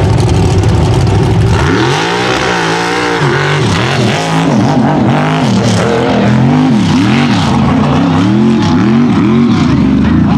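Mega mud truck's engine revving hard, steady at first, then from about two seconds in its pitch rises and falls roughly once a second as the throttle is worked over the obstacle course.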